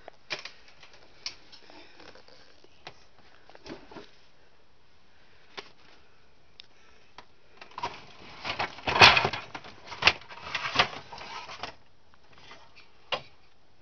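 Scattered clicks and knocks, then a louder stretch of rustling and clattering about eight to twelve seconds in: close handling noise, as of things being moved and the camera being handled.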